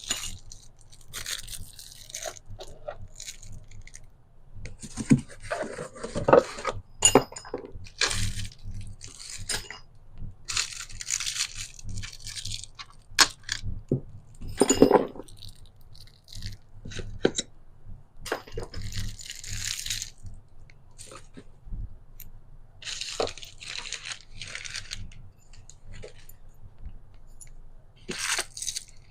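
Irregular crunching, scraping and clicking noises in short bursts, with a few sharper clicks.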